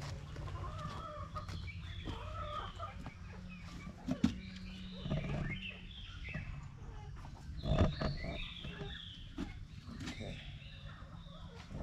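Chickens clucking, short scattered calls over a low steady rumble, with a couple of dull knocks about four and eight seconds in.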